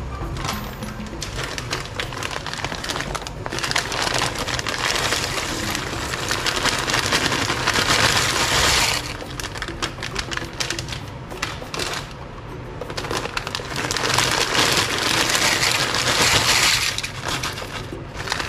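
Dry fusilli poured from its plastic bag into a pot of boiling water: a crackling rattle of pasta sliding out of the bag, in two long pours that each stop suddenly.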